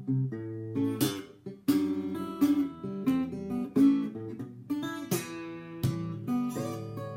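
Eko NXT parlour acoustic guitar being played, a mix of strummed chords and single picked notes, with several sharp full strums along the way.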